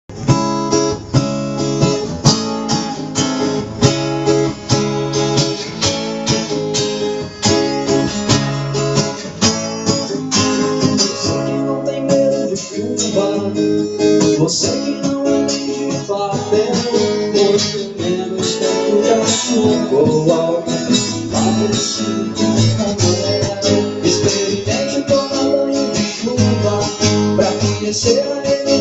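Two acoustic guitars strummed together, playing chords in a steady rhythm.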